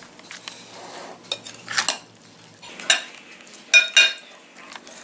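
A utensil stirring and scraping bread cubes soaked in egg mixture around a bowl, with irregular clinks against the bowl. The two loudest clinks ring briefly, late on.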